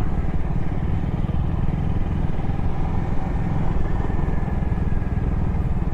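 Motorcycle running under way over a rough dirt track, with steady engine noise and heavy wind buffeting on the microphone.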